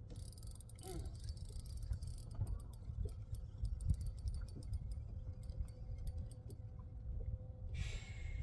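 Light clicks and ticks from a spinning rod and reel being worked while a crappie jig sinks and is retrieved, over a low wind rumble. A short rushing sound comes near the end.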